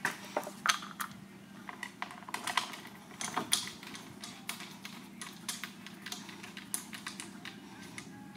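Irregular light clicks and taps of a plastic wicker bill strip being handled and positioned against a car's rear spoiler while a bolt is fitted by hand into a rivet nut.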